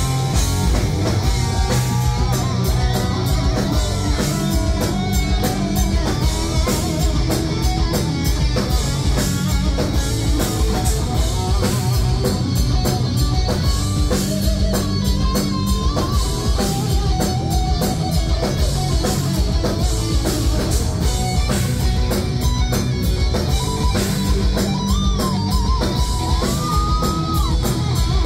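Live heavy metal band playing a lead electric guitar solo, the melody sliding and bending between held notes, over fast drumming and bass.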